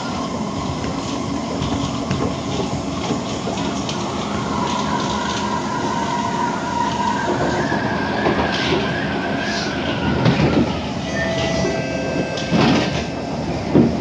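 Kawasaki-built SMRT C151 metro train running on elevated track, heard from inside the car: a steady rumble of wheels on rail, with a wavering whine in the middle and a few sharp knocks near the end.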